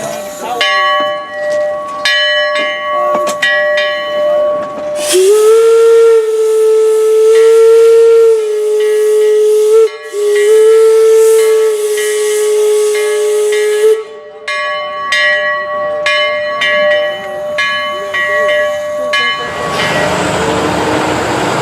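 Steam locomotive bell ringing steadily. Then the locomotive's steam whistle sounds two long blasts, one straight after the other, over hissing steam. The bell rings on after the whistle, and a loud rush of steam hiss takes over near the end.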